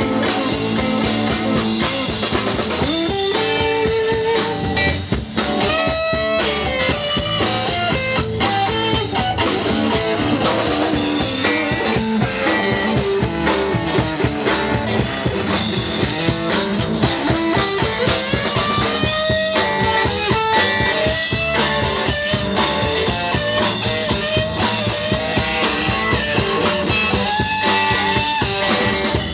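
Live rock band playing an instrumental passage: electric guitar leads with bent, sliding notes over bass guitar and a drum kit.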